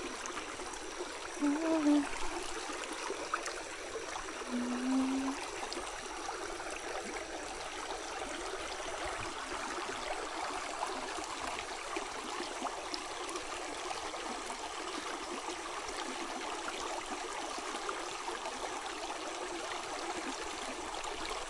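Shallow stream flowing over rocks: a steady rush of running water. Two short low-pitched sounds stand out over it in the first five seconds.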